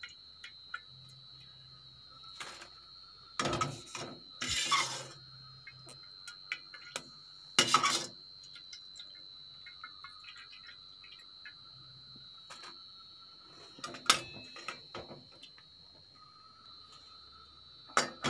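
Perforated steel frying ladle clinking and scraping against an aluminium kadai and a steel colander as fried pappadam pieces are scooped out of the oil and tipped into the colander. It is a series of sharp metal clanks, the loudest about 8 and 14 seconds in, with a longer scrape around 4 to 5 seconds in.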